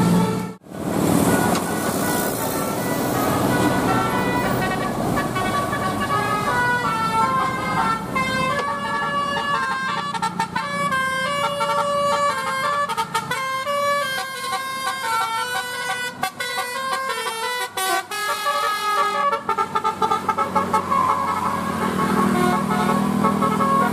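Bus engine and road noise, then, from about 7 to 19 seconds in, a bus telolet horn, a multi-tone air horn, plays a quick tune of stepped notes before the engine hum takes over again.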